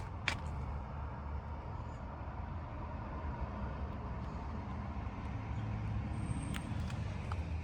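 Steady low vehicle rumble, with two sharp clicks right at the start.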